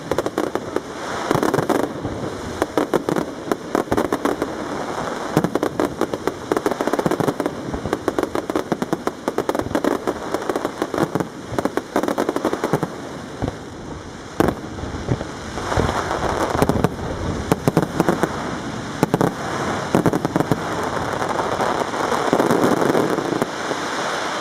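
Castillo fireworks display: aerial shells bursting in a rapid, near-continuous stream of bangs and crackling.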